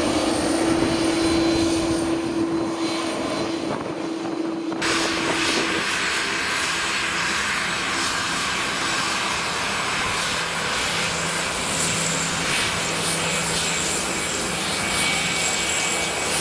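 Airliner engines running, a continuous steady noise with a hum in the first few seconds. About five seconds in, the sound changes abruptly to a broader, steady rush.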